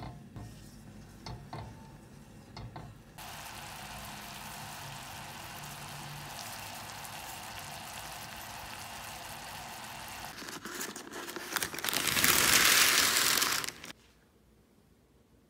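Sugar syrup with strips of orange peel boiling hard in a stainless steel pot, a steady bubbling sizzle. It starts about three seconds in, grows much louder near the end, then cuts off suddenly. Before it, a few light knocks of a wooden spatula stirring in the pot.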